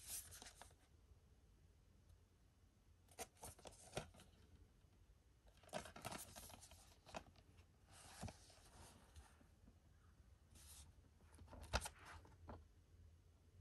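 Quiet handling of a plastic DVD case: scattered clicks and crinkling rustles in several short clusters, with the sharpest click near the end.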